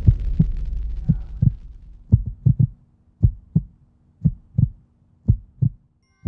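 Heartbeat sound effect: paired low thumps, about one beat a second, with a low hum under the first few beats that fades away.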